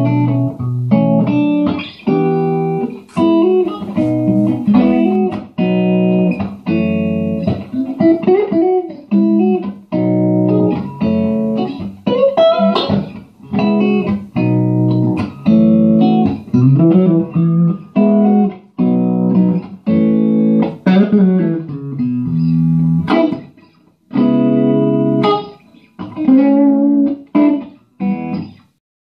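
Electric guitar played through a 6V6-powered 20-watt 1x12 tube combo amp: short chords and single-note phrases with several string bends. The playing stops shortly before the end.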